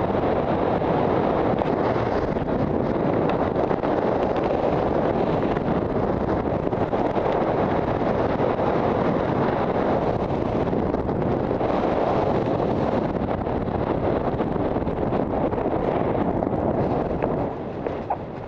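Rushing wind over a helmet-mounted camera's microphone as a skydiver flies an open parachute, a loud steady roar that drops off sharply about a second before the end as the jumper slows to land.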